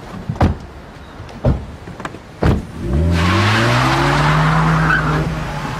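Car doors slamming shut three times, about a second apart. Then the car's engine starts with a rising note and runs hard as the car pulls away fast, with a loud hiss of tyre noise.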